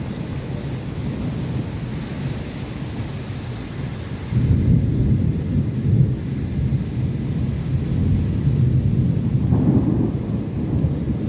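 Thunder rumbling in a rainstorm, with the hiss of rain. The rumble grows louder about four seconds in and keeps rolling.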